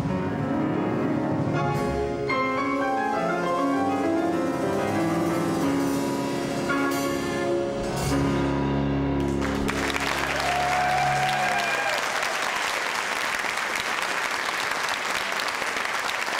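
Baldwin grand piano played in a quick run of notes, closing on a held low chord about nine or ten seconds in. Audience applause follows and carries on.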